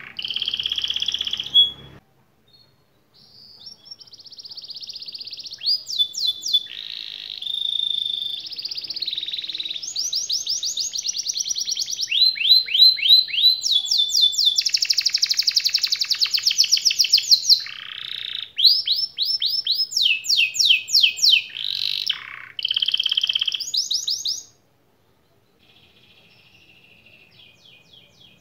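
Yellow domestic canary singing a long, loud song: fast rolling trills of repeated notes alternate with held whistled notes and buzzy phrases. There is a short break about two seconds in and another near the end, where the song turns faint.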